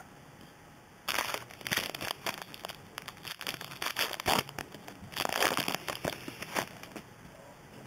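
Foil trading-card pack wrapper crinkling and being torn open by hand, in uneven bursts that start about a second in.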